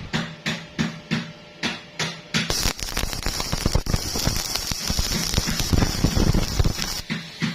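Stick welding arc crackling: first in a run of short bursts a third to half a second apart as the arc is struck and broken again and again, then about two and a half seconds in a continuous sizzling crackle as the arc is held, cutting back to short bursts near the end.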